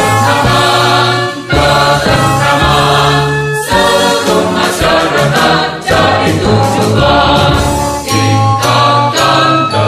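Background music: a choir singing a song with instrumental backing, in held notes over a steady bass.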